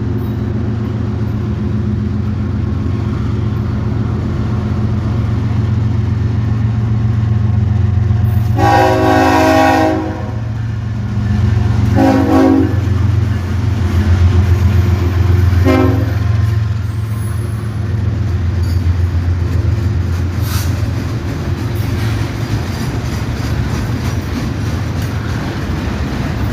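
Diesel freight locomotive rumbling steadily while its air horn sounds three blasts: a long one about nine seconds in, then two shorter ones about twelve and sixteen seconds in.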